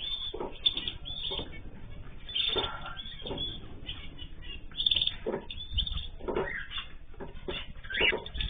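Cage birds chirping and calling in many short, overlapping notes, as in a mixed aviary.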